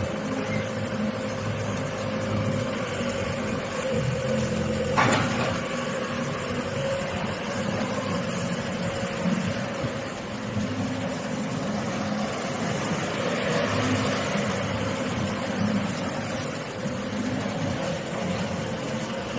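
Yanmar diesel engine of a Shanding SD75W wheeled excavator running steadily under a continuous whine. There is one sharp knock about five seconds in.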